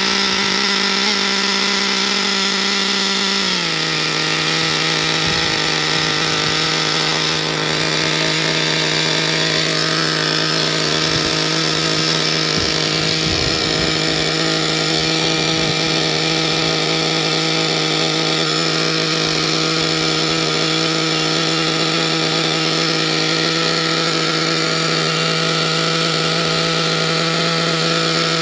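XTM 457 nitro engine of a 1/8 scale monster truck running steadily at a fast idle just after starting. Its pitch drops a step about three and a half seconds in, as the throttle trim is brought down from the halfway setting used for starting, then holds steady.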